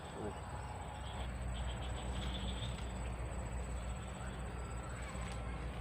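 Outdoor ambience: a steady, high-pitched insect drone over a low, constant rumble, with short clusters of insect or bird chirps in the first few seconds.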